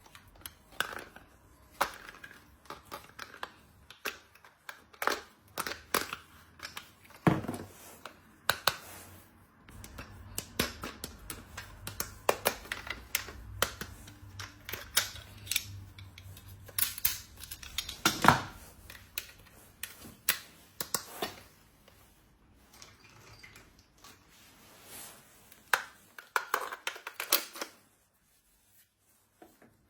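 Hands unpacking and handling small plastic toys: irregular clicks, taps and crinkles of plastic pieces and packaging.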